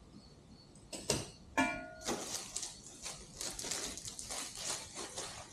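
Loose metal kit hardware (axle bolt, spacers, brackets) being handled and shifted about: a couple of clicks, then one clink that rings briefly, followed by quick rustling and clinking.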